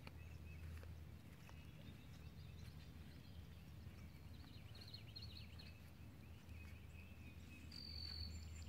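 Quiet riverside ambience: a low steady rumble with faint bird chirps about halfway through and a short, clear whistled bird note near the end.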